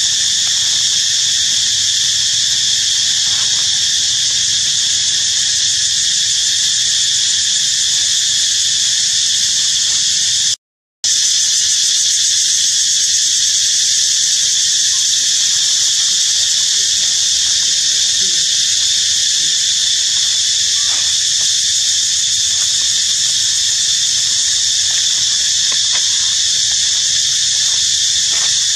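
Loud, steady, high-pitched chorus of insects droning without a break, cutting out for a moment about eleven seconds in.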